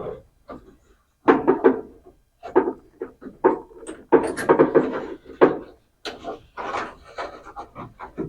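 Irregular clicking, knocking and rattling of hand tools and parts as an old truck's fuse panel is worked loose under the dash, in quick clusters with short pauses between.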